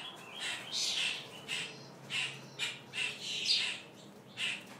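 Songbirds in a rehab aviary room calling: a run of short, high, scratchy calls, roughly two a second.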